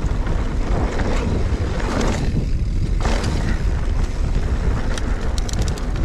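Wind buffeting the microphone over the rolling noise of a mountain bike riding down a dirt trail, with a quick run of clicks about five seconds in.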